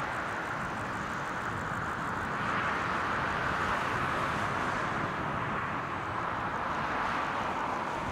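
Distant jet engines of an Airbus A350-900 running at low taxi power as it rolls toward the runway: a steady, even hiss-like noise that swells slightly a few seconds in.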